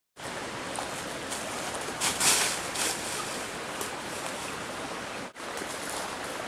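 Steady hissing background noise of an outdoor camcorder recording, with a few short louder bursts of noise about two seconds in. It cuts out briefly near the end.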